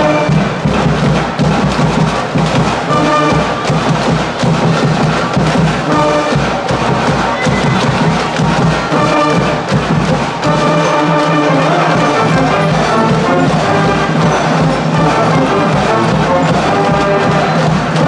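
School cheering brass band with sousaphones and drums playing a cheer song in the stands, a steady beat under the brass.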